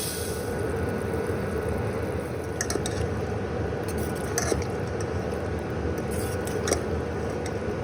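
Kitchen sounds of a spoon working through thick curry in a pan, with a few light clinks of metal on the cookware over a steady background hiss.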